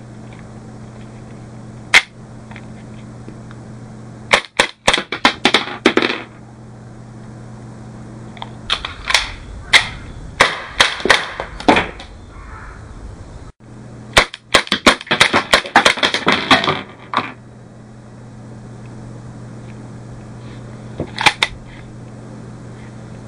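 Marushin M92FS cap-firing model pistol shooting PFC cap cartridges: a single sharp shot, then several quick strings of shots fired in rapid succession, and a last lone shot near the end. A steady low hum runs underneath.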